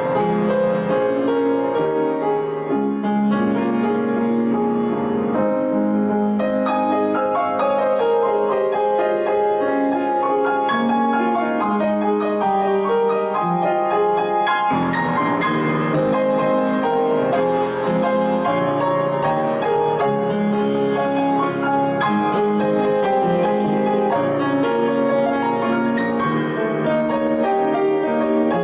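Solo piano playing a slow, gentle piece of sustained chords and melody.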